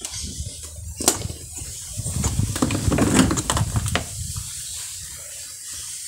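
Handling noise as a washing machine's burnt-out drive motor is worked loose and pulled out of the machine by hand: a sharp knock about a second in, then a busy run of rattles, clicks and scrapes for about two seconds, easing off afterwards.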